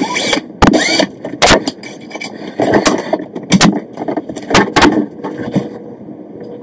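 Plastic toilet seat and hinge parts clicking and knocking against the porcelain while the seat is fitted onto its hinge posts: about ten sharp knocks, some in quick pairs, with a short rising squeak near the start. It quiets down near the end.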